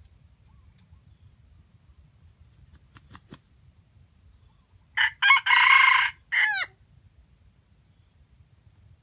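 A junglefowl rooster crows once, about five seconds in: two short clipped opening notes, one longer held note, then a short falling final note that breaks off abruptly.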